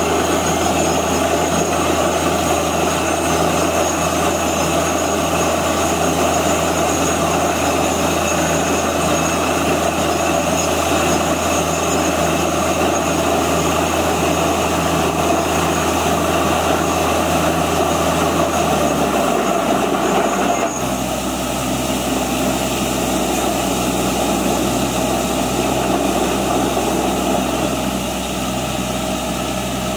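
Truck-mounted borewell drilling rig running steadily while drilling, with muddy water and cuttings blowing up out of the bore around the drill pipe. About two-thirds of the way through, the engine drops to a lower speed and the sound gets a little quieter.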